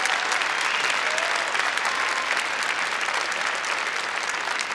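A large audience clapping: dense, steady applause that starts to die away near the end.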